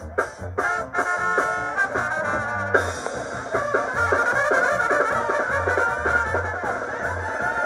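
Live brass band playing: trumpets carry the melody over a sousaphone's low bass line, with steady drum strikes keeping the beat.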